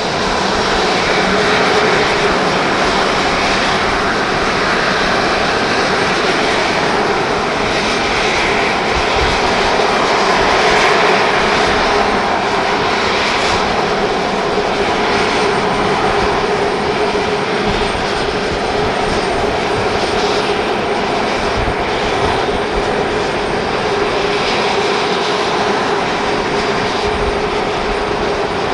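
The CFM56 turbofan engines of a Boeing 737-500 airliner running: a loud, steady jet roar with a held tone, rising a little in the first couple of seconds and then holding.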